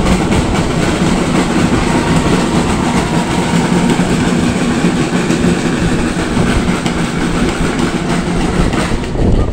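Children's marching drum corps playing snare drums and a bass drum: a dense, unbroken stream of drum strokes.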